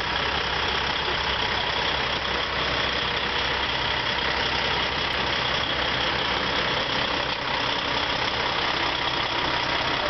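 Diesel engines of big truck tractor units idling, a steady, unbroken running sound.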